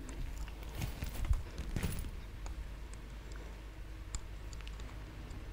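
Faint rustling and a few soft knocks and bumps as a large bag is lifted off the head and set down on the stage, over quiet room tone, with a couple of slightly louder bumps about one and two seconds in.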